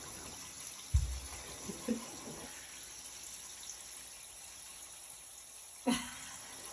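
Faint wet rubbing and light splashing of hands lathering a small dog's soaked fur in a bathtub. There is a dull bump about a second in and a short sharp sound near the end.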